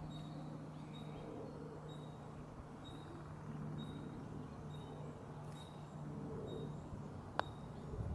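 A single sharp click of a putter striking a golf ball near the end, over a steady low hum and a short high chirp repeating about once a second.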